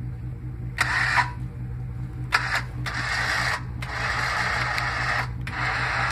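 Winch hauling a log by its cable, working in several spurts with short breaks between, over a steady low hum.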